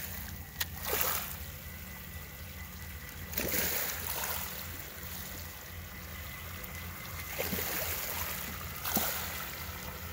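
Water splashing and churning as the HuaF amphibious RC monster truck's paddle-tread wheels drive it through shallow salt water toward the shore. The splashing comes in several surges over a steady low rumble.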